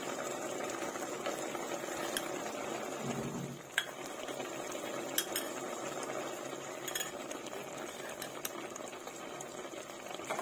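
Clams simmering in a pot of spiced gravy, bubbling steadily, with a few light clinks.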